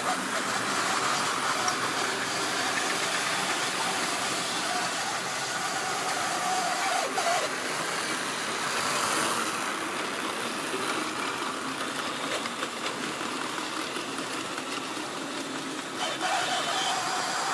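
Tri-ang or Lima model trains running on the layout's track: a steady whir of small electric motors with wheel noise on the rails.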